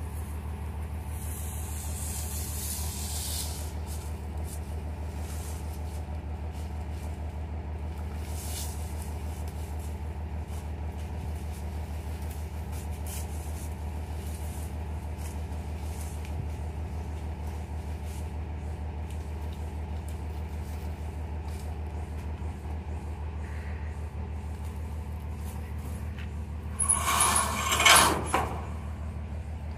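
Truck engine running steadily, heard as a low drone from inside the cab while driving. A loud burst of hiss lasts about a second and a half near the end.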